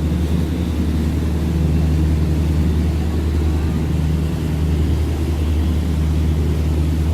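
Steady low engine drone of a Seine sightseeing cruise boat, heard on board, with no change in pitch.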